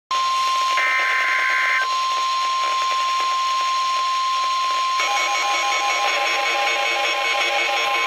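NOAA Weather Radio 1050 Hz warning alarm tone, a steady high single tone over radio static, sounding the alert for a Special Marine Warning. A brief chirp sounds about a second in, and a pulsing beep pattern joins about five seconds in.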